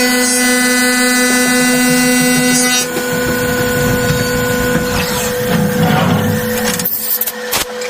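CNC milling machine cutting a copper part: the spindle and cutter run with a steady whine of several tones, which shifts about three seconds in as the cut changes. A few sharp clicks come near the end.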